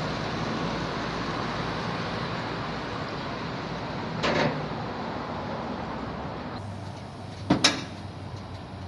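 Vehicle running, a steady wash of engine and road noise that slowly fades, with a short knock about four seconds in. Near the end come two sharp clicks close together, a vehicle door latch opening.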